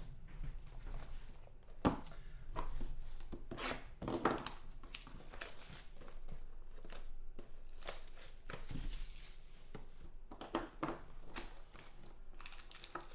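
Irregular crinkling and tearing of the wrapping on a 2014 Playbook football trading card box and packs as they are torn open, with scattered handling rustles.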